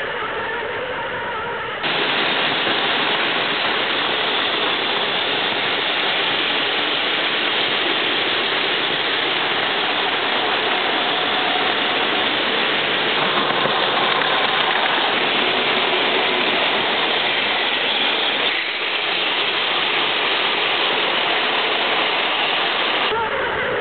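Background music for about two seconds, then an abrupt change to many Takara Tomy Plarail battery-powered toy trains running on plastic track at once. Their small gear motors and wheels make a steady, dense whirring rattle.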